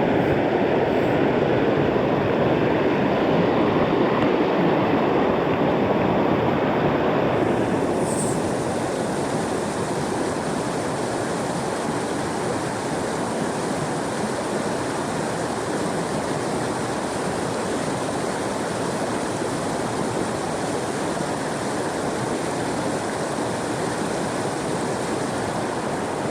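Mountain creek running high, a steady loud rush of water. About eight seconds in it drops a little in level and turns hissier.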